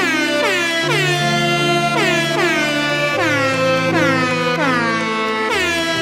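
"Sad air horn" meme effect: air horn blasts that each droop downward in pitch, repeating about two to three times a second, over a musical backing with held low notes.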